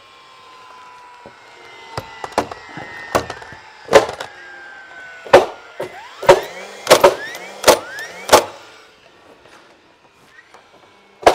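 Framing nailers driving nails into 2x6 studs and plates: about ten sharp shots at uneven intervals, coming quickly through the middle, then a pause and one more shot near the end. A faint whine slowly falls in pitch over the first few seconds.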